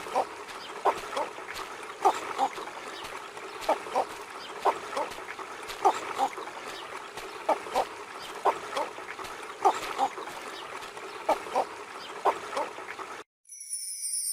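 Cattle egret colony calling: short calls, often in pairs, repeated every second or so over a steady background of other birds. Near the end the calls stop and a different, high-pitched chirping begins.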